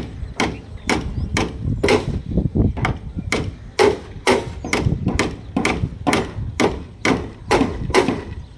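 A hammer striking inside a wooden concrete formwork (shuttering) box, steady blows about two a second. They are hit hard so the piece fixes in place inside the form.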